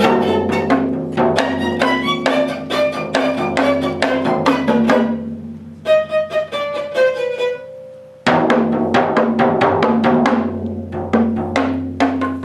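Viola and four drums playing together: rapid drum strokes under bowed viola lines. About five seconds in the drums drop away and the viola holds a few sliding notes alone, then the drum strokes come back in suddenly and loud about eight seconds in.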